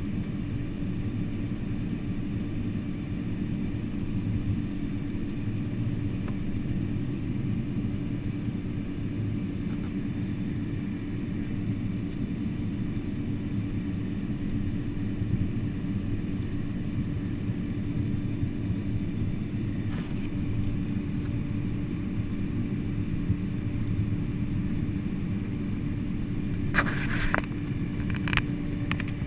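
Steady low rumble of engines and airflow inside the cabin of a Boeing 747-400, with a constant hum, and a few short clicks near the end.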